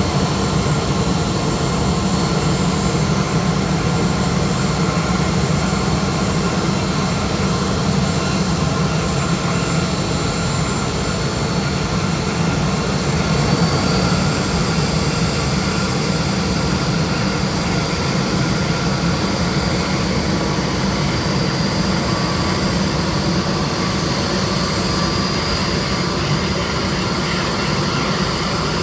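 Jet engines of a Boeing 737 running: a steady low rumble with a faint high whine over it.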